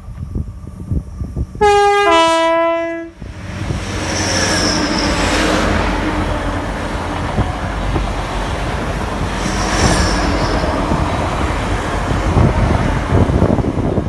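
EMR Intercity express train sounding a two-tone horn about two seconds in: a short higher note, then a longer lower one. It then passes close by at speed with a loud, steady rush of wheel and engine noise.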